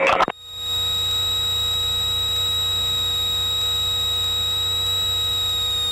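Steady high-pitched electronic tone, like a warning buzzer, over a low hum in the cockpit audio, starting about a third of a second in.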